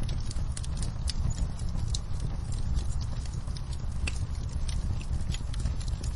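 Wood fire crackling: irregular sharp pops and snaps over a steady low rumble, with rain pattering on a window.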